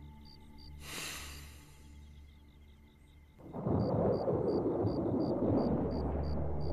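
Thunder: a brief high hiss about a second in, then a loud rumble that rises suddenly about three and a half seconds in and keeps going. Soft music with a regular high pip, about three a second, plays under it.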